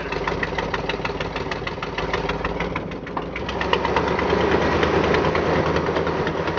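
1977 GMC dump truck engine running with a steady, rapid, even beat; about three and a half seconds in it picks up and runs louder.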